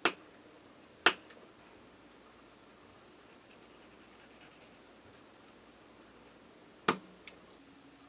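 Hand work on small plastic-sheet model parts: three loud, sharp clicks, one right at the start, one about a second in and one near the end with a smaller click just after it. Faint scratching of a sanding stick on plastic comes between them.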